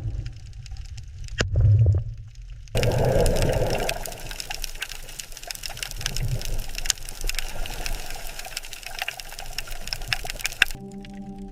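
Rushing, crackling water noise full of tiny clicks, as in an underwater soundscape, over a low rumble. Near the end it gives way to a brief steady low hum.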